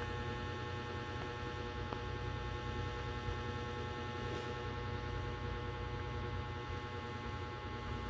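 Steady electrical mains hum with a buzz of many even tones, a constant background drone in the recording.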